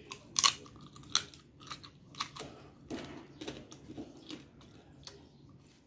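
A person chewing and biting into curried chicken close to the microphone, with irregular sharp crunches, the loudest about half a second in.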